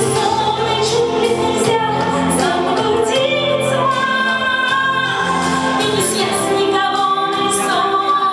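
A woman singing a song into a microphone with instrumental accompaniment, holding long sustained notes.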